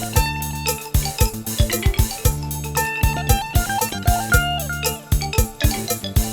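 Music with a steady, quick drum beat under a bright struck or plucked melody and a sustained bass.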